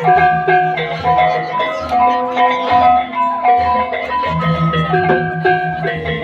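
Balinese gamelan playing dance music: bronze metallophones struck with mallets in quick ringing notes over a low sustained hum. The hum drops out for a couple of seconds in the middle.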